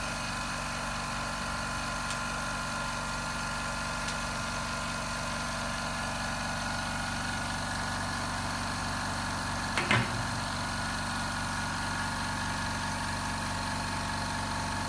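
Small air compressor running steadily, pumping air into an autoclave LCD bubble remover's chamber as it pressurises toward 0.4 MPa (about 4 kg). A short knock about ten seconds in.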